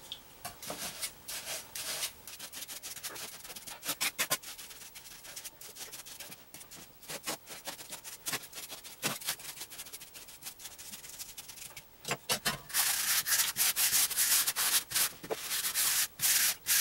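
A trowel scraping and smoothing mortar across a plywood floor: scattered scrapes at first, then from about two-thirds of the way through, quicker, louder strokes one after another.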